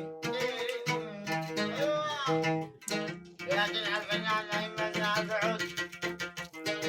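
A plucked string instrument playing a quick melodic instrumental passage between sung verses of a song.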